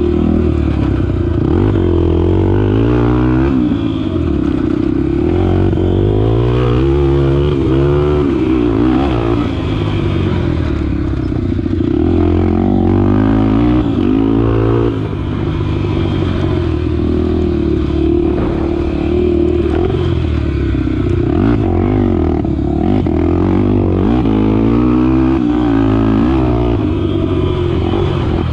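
Honda XR250 Tornado dirt bike's single-cylinder four-stroke engine being ridden hard, the throttle opened and closed again and again so its pitch rises and falls every couple of seconds.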